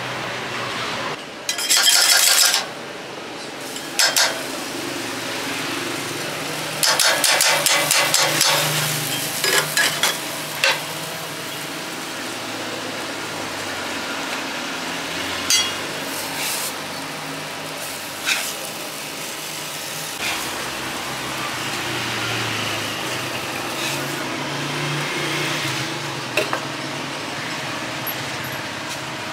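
Food sizzling in a pan, with utensils clinking and scraping against pans and dishes. A few seconds of rapid clatter come about seven seconds in.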